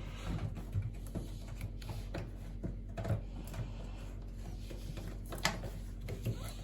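Rubber washing-machine door seal being worked by hand into the gap around the front cabinet panel: scattered, irregular small rubbing and tapping sounds over a steady low hum.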